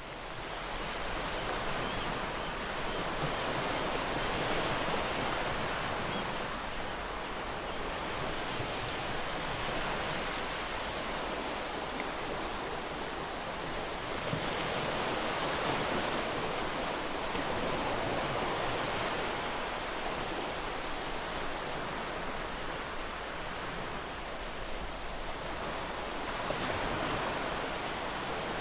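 Ocean surf washing on a shore: a steady rush of noise that swells and eases every few seconds as waves break. It fades up over the first second.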